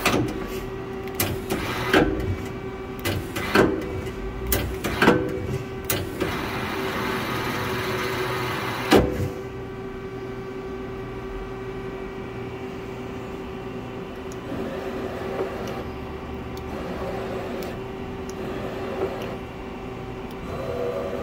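Femco Durga 25E CNC lathe's tool turret indexing: a series of sharp clunks over the first nine seconds, the last one the loudest. The machine then runs on with a steady hum as the turret moves.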